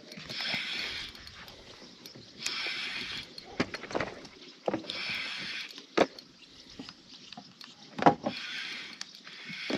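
Spinning reel being cranked in short spurts of a few turns every couple of seconds, a gear whir each time, with a few sharp knocks between the spurts.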